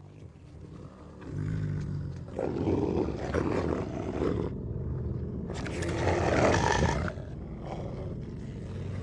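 Wolves snarling and roaring in two loud, rough bouts, the second starting about halfway through and cutting off near the end.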